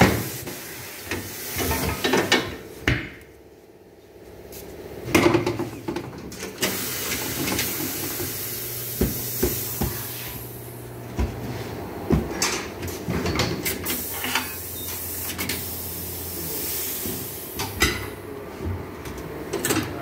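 Scattered clanks and knocks as a car tyre on an alloy wheel is handled and set onto a tyre-changer machine, the loudest a little after five seconds in. A low steady machine hum runs for several seconds in the middle.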